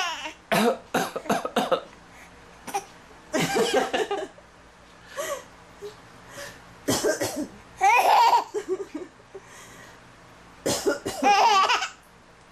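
A woman coughing in short sharp bursts, and a four-month-old baby laughing in high-pitched peals, the two coming in several rounds.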